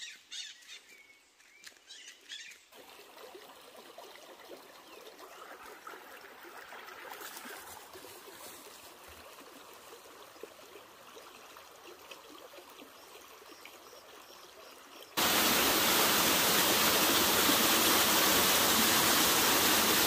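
Quiet outdoor ambience, then about fifteen seconds in a sudden cut to a small waterfall splashing down rock: a loud, steady rush of water.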